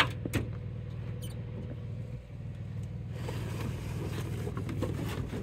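Plastic nuc boxes of bees being handled in a pickup truck bed: a few sharp knocks of plastic in the first second or so, then from about halfway a scraping, rustling noise as a box is slid across the ribbed bed liner. A steady low hum runs underneath.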